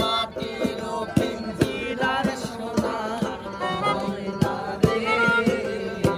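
Live folk music: a melodica playing a reedy held melody while a man sings, over a steady drum beat about two or three strikes a second.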